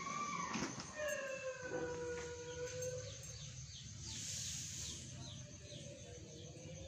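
Young puppies whining: long, high, drawn-out cries that slide slowly in pitch, one starting about a second in and lasting about two seconds, another near the end.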